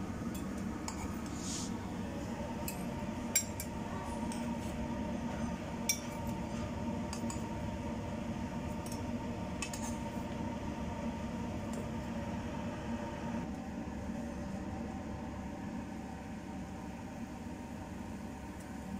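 Kitchen cooking sounds: light clinks and taps of utensils against a frying pan and plate, two of them sharper, over a steady low hum.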